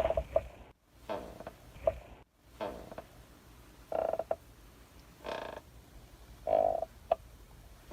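Old rocking chair creaking as it rocks. Each swing gives a short pitched creak, usually followed by a quick squeak, about once every second and a half in an even rhythm.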